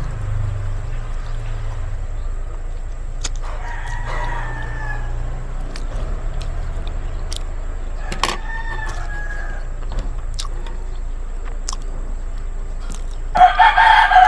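Roosters crowing: two faint crows, then a much louder crow near the end, over a steady low hum.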